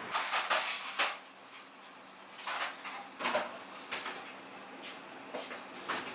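Kitchen clatter: sharp clicks and knocks of dishes or utensils being handled, in three short clusters, over a faint steady hum.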